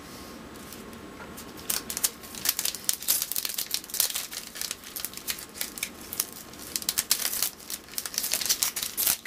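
A 2010 Upper Deck baseball card pack being opened by hand: its wrapper crinkles and crackles in quick, irregular bursts, starting about two seconds in.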